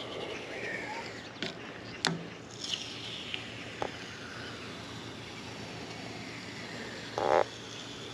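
Light clicks and knocks of handling, then a short, loud rasping scrape about seven seconds in.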